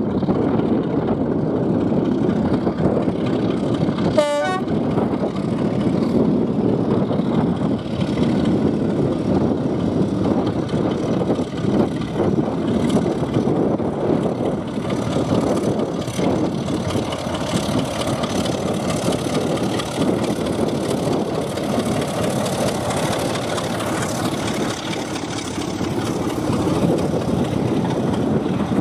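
Diesel locomotive running as it hauls a passenger train past, with one short horn toot about four seconds in, then the carriages rumbling by.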